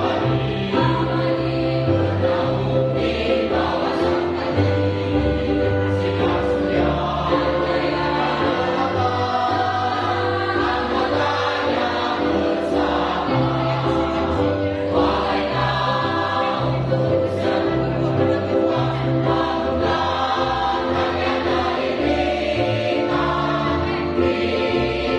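Choir singing in parts, with sustained notes that change in steps over a low bass line.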